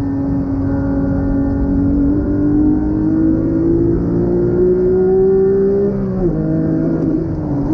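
Porsche 911 GT3's naturally aspirated flat-six at full throttle, heard from inside the cabin. The engine note climbs steadily through a gear, then drops suddenly about six seconds in as the manual gearbox shifts up, and climbs again.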